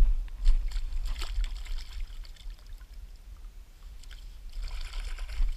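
Shallow seawater splashing and sloshing as gloved hands dig into the submerged sand and pull out a clam. There is a spell of splashing about a second in and another near the end, over a steady low rumble.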